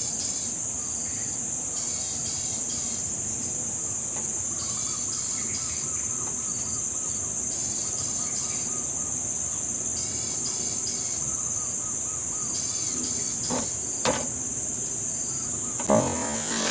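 Steady, high-pitched insect chorus that goes on throughout, with short chirps in quick groups every couple of seconds. A few sharp knocks come near the end.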